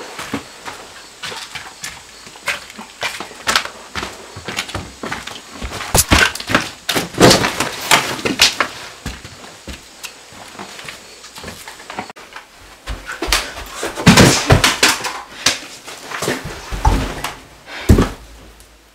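Footsteps crunching and knocking over a debris-strewn floor, uneven in pace, with clusters of louder noisy bursts about six and fourteen seconds in and a sharp thump near the end.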